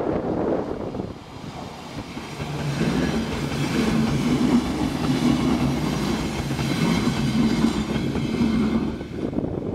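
Saltsjöbanan C10/C11 electric multiple-unit train passing close by, its wheels running over the track with a steady hum. It builds up about two and a half seconds in and eases off near the end.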